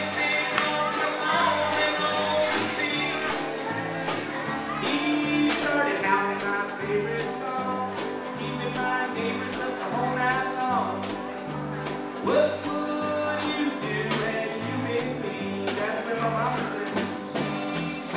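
Live band music: a man singing while playing a hollow-body electric guitar, with drums keeping a steady beat.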